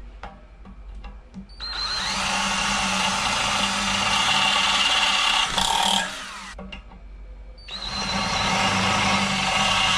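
Cordless power drill boring a hole through a metal motorcycle wheel rim for a rim lock, working up through larger bit sizes. It runs twice in steady spells: the first starts about two seconds in and stops around six seconds, the second starts just before eight seconds. Small clicks and knocks fall in the pauses.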